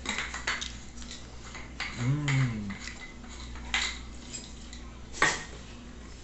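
Wet mouth and chewing sounds from eating a salted fresh tomato slice by hand, with a short hummed "mmm" about two seconds in. Scattered light clicks, and one sharper click about five seconds in.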